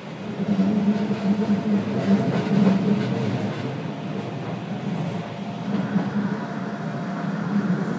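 Iyotetsu 3000-series electric commuter train (ex-Keio Inokashira Line 3000 series) running on the line, heard from the cab: a steady rumble of wheels and running gear with a faint steady hum. The noise grows louder right at the start and then holds.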